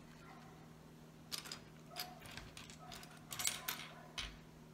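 Loose plastic LEGO pieces clicking and rattling against each other and the wooden tabletop as they are picked through by hand. The clicks come in a few short clusters, the loudest about three and a half seconds in, over a faint steady hum.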